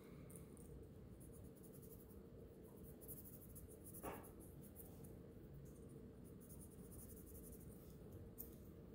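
Small folded piece of sandpaper rubbed in short strokes against the side of a silver SKMEI watch case: a faint, dry scratching, sanding the metal to a satin finish. A single light tap about four seconds in.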